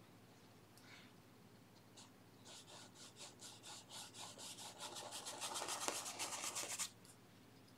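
Paintbrush scrubbing oil paint onto textured canvas in quick, short back-and-forth strokes, about five a second. The strokes begin a couple of seconds in, grow louder and stop suddenly about seven seconds in.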